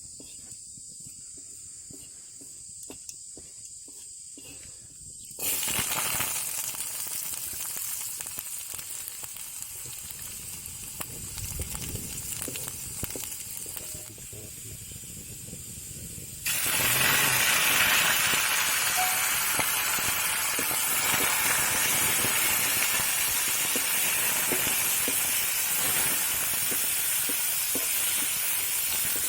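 Food sizzling in hot oil in a pan. The sizzle starts abruptly about five seconds in and jumps louder about halfway through, the way it does when more food goes into the oil. Before it starts, a steady high insect drone.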